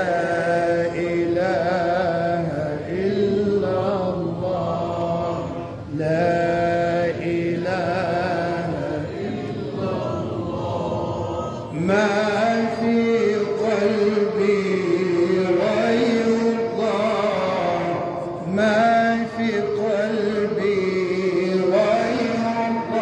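Male chanting of an Arabic Islamic ibtihal (devotional supplication): long melismatic phrases with held, wavering notes, with short breaths between phrases about every six seconds.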